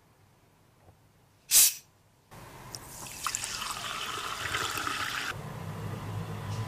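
A bottle of strongly carbonated sparkling water is unscrewed with one short, sharp hiss of escaping gas. The water is then poured into a glass, splashing and fizzing. The pouring stops a little after five seconds in, and the bubbles keep crackling.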